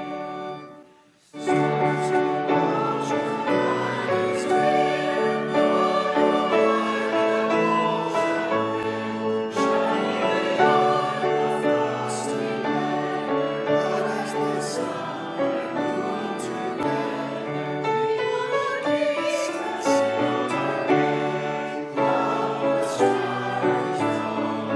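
Closing church music: one piece ends with a brief drop to near silence about a second in, then a sacred choral piece with singing voices and accompaniment begins and carries on.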